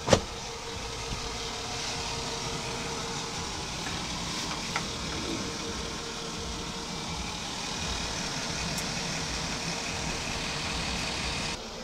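Vegetables cooking in a cast iron skillet over a gas stove burner: a steady hiss with a faint hum underneath, and a sharp click right at the start.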